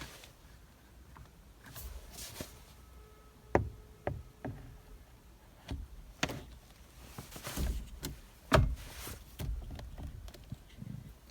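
Irregular clicks, taps and knocks of hand work at a steering column, as a steering wheel is fitted back over a freshly centred clock spring. The loudest knocks come about three and a half seconds in and again near eight and a half seconds.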